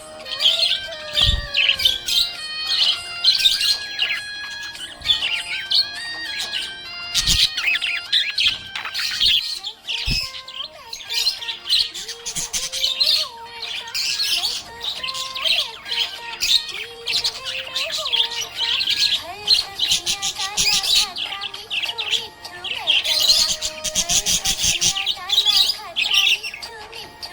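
Budgerigars chirping and warbling continuously in rapid, high twittering chatter, with a few brief low thumps.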